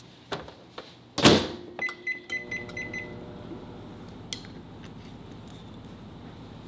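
Microwave oven door shut with a thump, then a quick run of high keypad beeps as it is set, and the oven starts running with a steady low hum.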